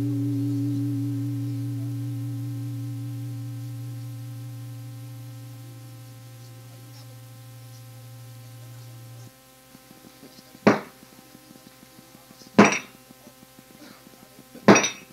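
A deep struck bell rings out and slowly fades, its low hum cutting off about nine seconds in. Then come three sharp knocks, about two seconds apart.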